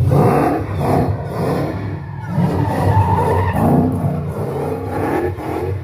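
Supercharged Hellcat HEMI V8 in a Nissan 350Z revving hard under load, with the tyres squealing as the car skids and drifts.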